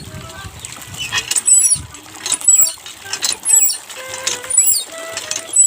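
Squeaky hand water pump worked stroke by stroke, a high wavering squeak about once a second, with water splashing into a container.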